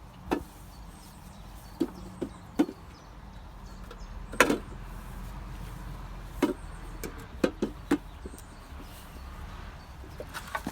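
Irregular sharp knocks and clanks, about a dozen, of a magnet-fishing magnet striking a sunken metal safe. The loudest comes about four seconds in.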